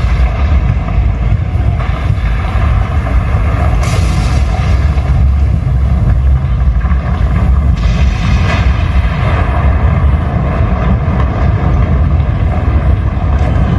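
Loud, steady low rumble from the prop volcano's eruption show as it puffs out a smoke plume, with a hiss above it that swells briefly about four seconds in and again around eight seconds.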